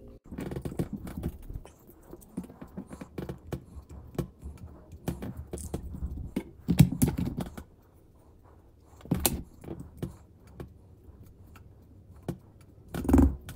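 Small clicks, taps and light scrapes of hands working on a diecast toy car and its small parts: a gel glue tube being handled and tweezers on the metal base. A few louder knocks come spread through it, the loudest near the end.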